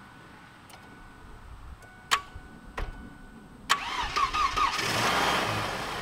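A 1993 Ford Mustang fox-body engine, run off a portable jump box, is started. Two sharp clicks come about two seconds in. About a second later the engine cranks and catches within a second, revs up and settles into a steady idle.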